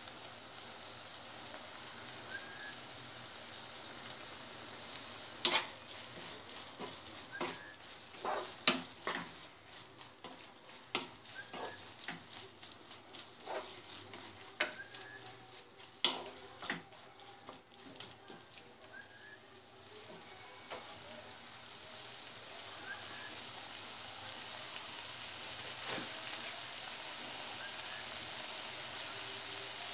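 Elephant apple pieces sizzling in oil in a nonstick pan, with a steady hiss. A wooden spatula stirs them, knocking and scraping against the pan several times in the first half, with three loud knocks; the sizzling then settles back to a steady hiss.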